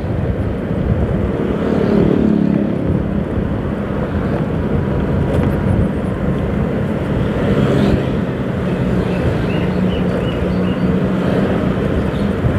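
Motorcycle engine running while riding slowly in traffic, with road and wind noise; its pitch rises and falls about two seconds in, then holds steady.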